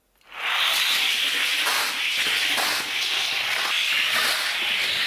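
Toy car rolling down a toy race track: a steady hissing roll noise that starts just after the beginning, with a few faint clicks in it.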